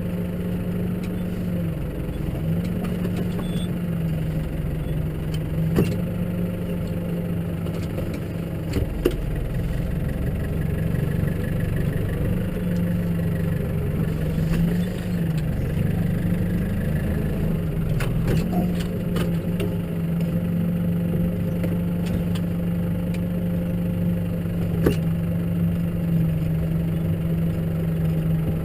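Case tractor engine running steadily, its pitch dipping briefly a few times as the revs change, with a few sharp knocks and clatters.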